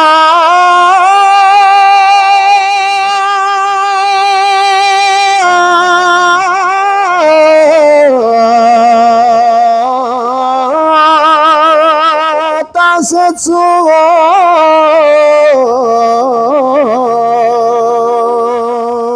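A man singing a naat (devotional song in praise of the Prophet) unaccompanied into a handheld microphone, holding long notes with a wavering vibrato and gliding between them, with a brief break about two-thirds of the way through.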